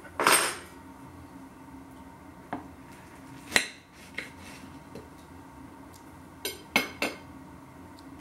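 A table knife clinking against a plate while a Cornish pasty is cut open: a clatter just after the start, a few single sharp clinks, then three quick clinks near the end.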